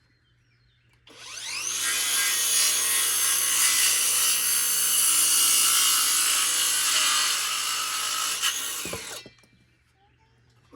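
Electric power saw spinning up and cutting through a wooden board for about eight seconds, starting about a second in and stopping suddenly near the end.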